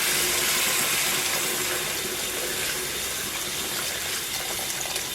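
Beef broth being poured into a wok of frying beef ribs and sauce, a steady splashing pour of liquid, a little louder for the first second or so.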